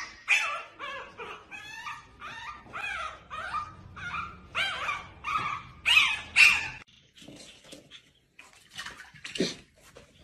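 A young puppy gives a rapid series of high, wavering whimpers and yips, about two or three a second, which stop about seven seconds in. Fainter, scattered animal sounds follow, with one sharper cry near the end.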